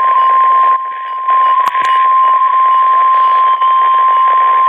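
NOAA Weather Radio warning alarm tone, the 1050 Hz attention signal, sounding as one steady tone over radio hiss. It marks the start of an alert broadcast, here a severe thunderstorm watch.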